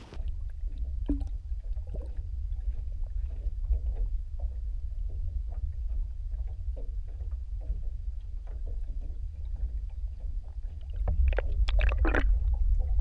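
Muffled low rumble of lake water picked up by an underwater camera, with faint scattered clicks and taps. It gets louder about eleven seconds in, with a few sharper knocks.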